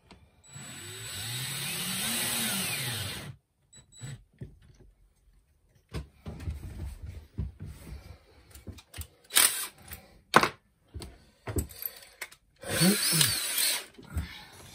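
Power drill boring mounting holes, running for about three seconds with its pitch rising then falling as it spins up and slows. Scattered clicks and knocks follow, then a second, shorter drill run near the end.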